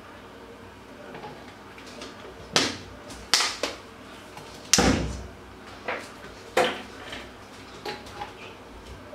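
Plastic oil bottles being handled and set down on a wooden kitchen worktop: a series of knocks and clunks, the loudest and deepest one about halfway through.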